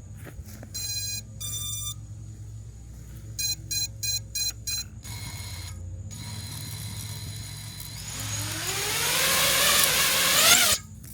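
FPV quadcopter's electronic speed controllers beeping short tone groups, then its brushless motors spinning up. The motor whine rises in pitch and grows louder over a few seconds, then cuts off abruptly near the end.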